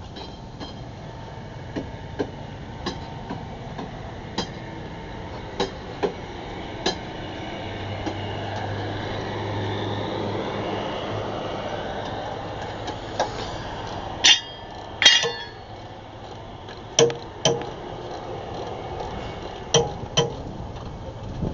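Steel lawn mower blades being handled and set down, giving scattered knocks and clinks, with two louder ringing metal clanks about two-thirds of the way through and a few more knocks near the end. A steady background noise swells and fades in the middle.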